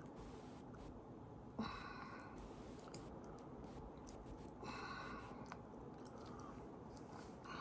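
A person chewing a cracker spread with jelly, close to the microphone, with two louder chewing bursts about one and a half and five seconds in.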